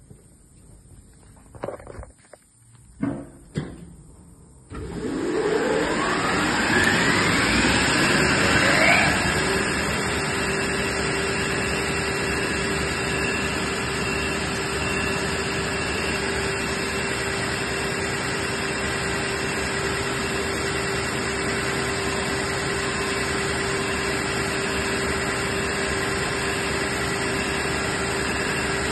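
Houfek Buldog 3 wide belt sander's 11 kW main motor starting: after a few short knocks, the machine starts suddenly, rises in pitch for about four seconds as it spins up, then runs steadily with a constant hum.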